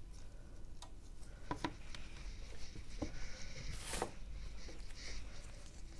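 Small clicks and taps of parts and tools being handled on a workbench, with a brief scratchy rustle about four seconds in.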